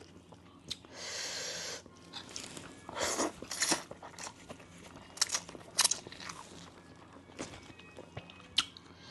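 A person chewing and crunching mouthfuls of Thai papaya salad (som tam), in scattered crisp crunches and wet mouth clicks.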